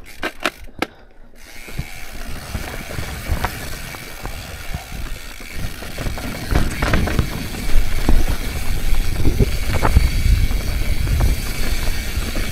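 Mountain bike ridden over rocky trail: a few sharp clicks, then from about a second and a half in a continuous rattle of the bike, with the freehub ratchet ticking and tyres knocking over rock. A low rumble, typical of wind on the microphone, grows louder in the second half.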